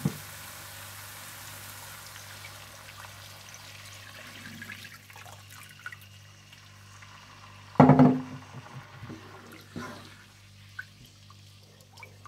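Water poured into a hot pot of fried onions, yogurt and spices, hissing at first and fading over several seconds. About eight seconds in there is a single short, loud clank.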